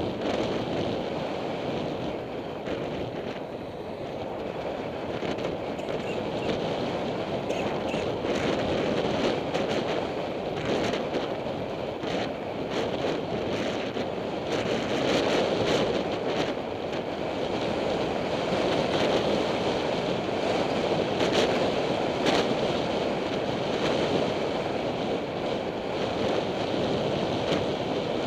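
Wind rushing over a bicycle helmet camera's microphone as the rider rolls along, a steady noise that swells and eases, with a scatter of small clicks and knocks through the middle.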